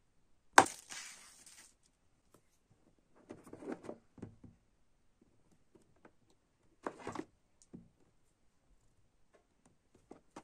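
Handling sounds from a boxed album set on a wooden table. About half a second in comes a sharp crack with a short crinkly rustle. After that come a few short bursts of soft knocks and scrapes as the box is picked up and turned over.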